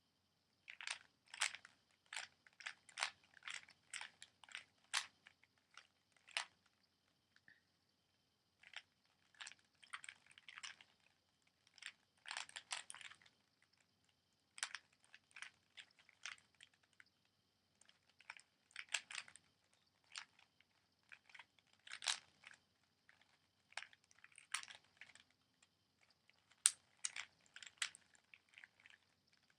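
A Rubik's Cube being turned quickly by hand during a speedsolve: rapid runs of sharp plastic clicks and clacks as the layers snap round, broken by short pauses between move sequences.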